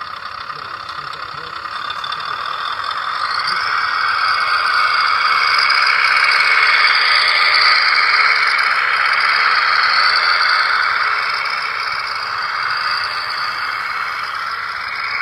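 Radio-controlled Scania 8x8 concrete mixer truck model driving over dirt, its electric drive and gears whirring. It grows louder as it comes close, then eases off as it moves away.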